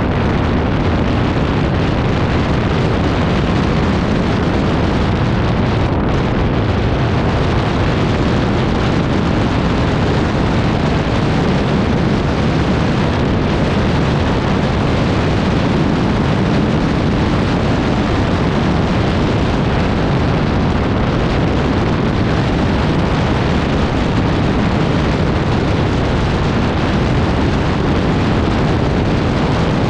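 ATV on the move: a loud, steady, rumbling roar of engine and wind buffeting the microphone.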